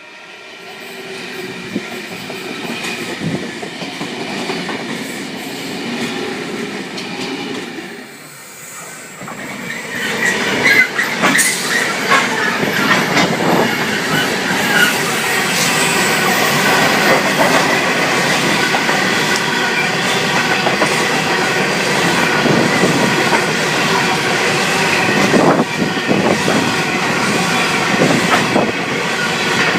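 A Sydney Trains V set, an electric double-deck intercity train, passing through the station. Its wheels clatter over the rail joints with a steady high-pitched squeal. The sound builds over the first several seconds, dips briefly, then gets louder and stays loud as the cars go by.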